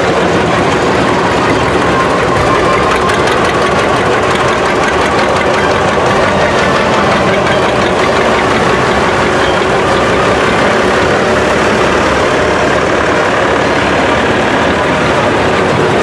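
Engines of a line of vintage farm tractors running at low, steady speed as they drive past one after another, among them a green John Deere and a red Massey Ferguson.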